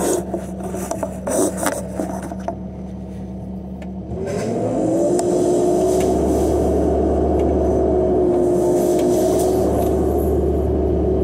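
Cat 311 excavator running, heard from inside the cab, with clicks and scrapes over a steady low tone; about four seconds in a rising whine as the hydraulic flail mower spins up, then the mower and engine run steady and louder at the higher pitch.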